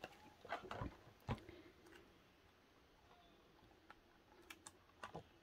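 Faint sounds of a photobook and its cards being handled: a few soft clicks and rustles in the first second and a half, a quiet stretch, then more light clicks near the end as the book's pages are turned.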